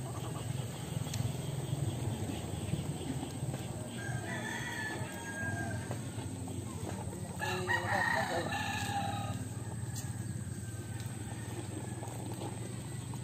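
A rooster crowing twice, a shorter crow about four seconds in and a longer, louder one about halfway through, over a steady low background hum.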